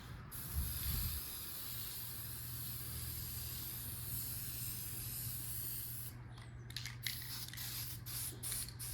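Aerosol spray-paint can hissing in one long steady spray, then in short spurts over the last few seconds. The can's nozzle head is broken, so the paint sprays all over the place.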